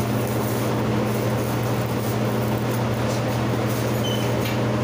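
Steady low machine hum running without change.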